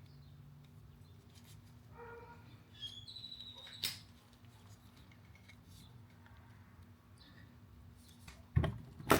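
Faint clicks and a short high squeak of small metal parts being worked by hand, then two sharp knocks near the end.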